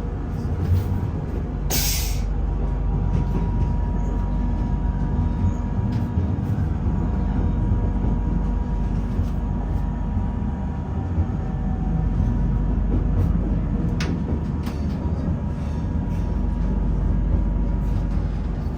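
Regional train running, heard from inside the carriage: a steady low rumble with a faint steady whine. A short hiss comes about two seconds in, and a sharp click about three quarters of the way through.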